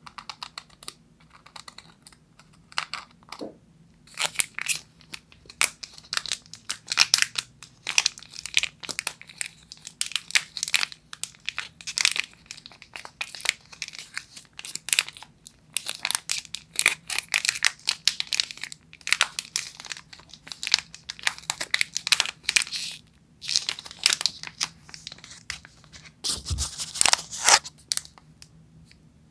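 Millennium Air chocolate bar's wrapper crinkled and rustled between fingers in irregular crackling bursts, with a low thump near the end.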